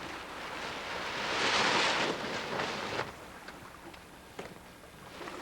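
Wind and sea wash rushing past a sailboat under way, swelling loudly about a second in and easing off again after about three seconds.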